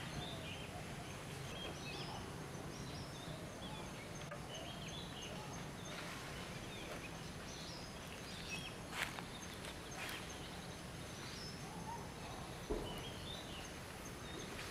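Outdoor ambience: a steady low background noise with scattered faint, short bird chirps throughout, and a sharp click about nine seconds in and a soft knock near twelve and a half seconds.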